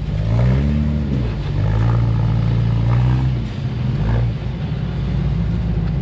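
Rock buggy engine working over trail rocks, its revs blipping up and falling back about half a second in and again, more gently, around three and four seconds in, between stretches of steady running.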